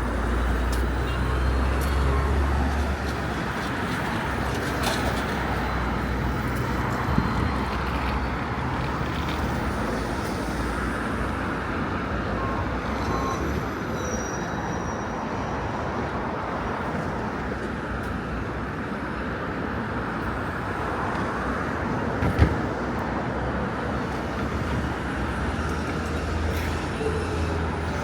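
Steady road traffic rumble, with a heavier low engine rumble near the start and end. Two sharp knocks, about seven seconds in and again past twenty-two seconds.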